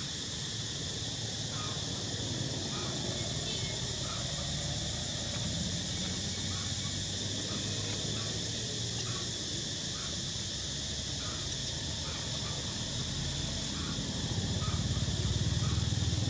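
Outdoor ambience: a continuous high-pitched drone, with a faint short chirp about once a second and a low rumble that grows louder near the end.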